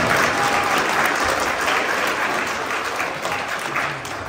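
Audience applauding, a crowd clapping steadily that tapers off near the end.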